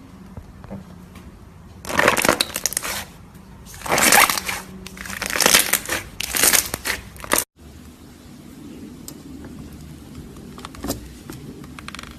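Slime being pressed and squished, making four loud bursts of crackling, popping noise over about five seconds. A brief cut follows, then only a faint steady background.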